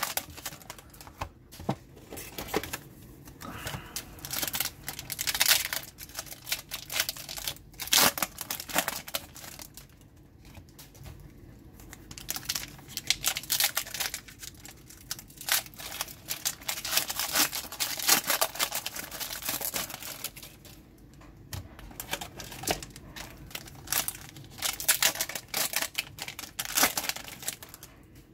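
Foil wrappers of trading-card packs being crinkled and torn open, with cards being handled, as a dense run of rapid crackles and clicks. The footage is fast-forwarded, so the handling noise comes quickly.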